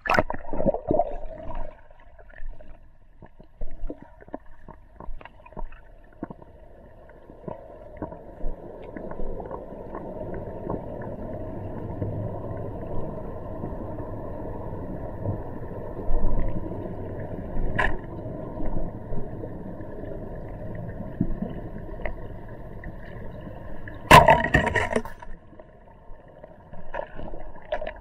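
Water heard from under the surface by a submerged camera: a muffled, steady rush with scattered knocks and clicks, and a short, louder burst of noise about three-quarters of the way through.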